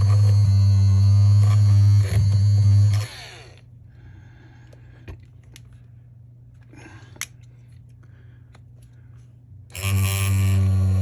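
A loud steady low hum with higher steady tones above it cuts off about three and a half seconds in, leaving quiet with a few small clicks and taps, and starts again near the end.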